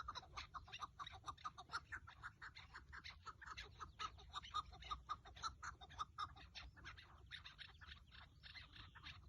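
Chukar partridge calling: a fast, steady run of short repeated chuck notes, about four or five a second.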